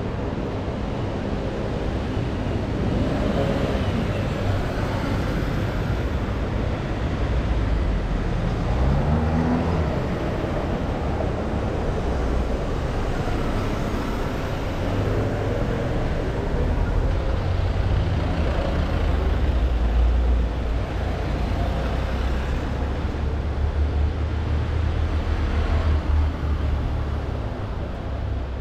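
City street traffic: cars and other vehicles running and passing, a steady low rumble under the general noise of the street, growing heavier in the second half.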